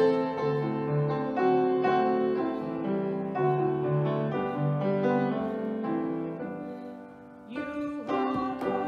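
Piano playing the introduction to a hymn in steady, even notes. About seven seconds in it drops away briefly, then sharp conga hand-drum strokes come in and a woman begins to sing.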